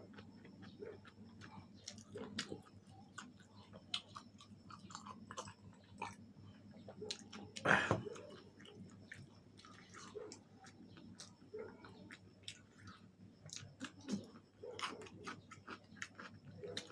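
Close-miked chewing and biting of fried chicken wings, with many small crunchy clicks and smacks, and one louder sharp sound about halfway through.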